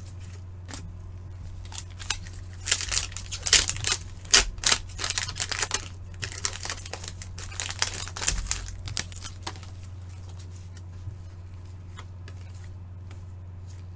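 A stack of Upper Deck hockey trading cards being flipped through by gloved hands: quick clicks and rustles as card slides and snaps against card. It is busiest from about three to nine seconds in, then only a few ticks, over a steady low hum.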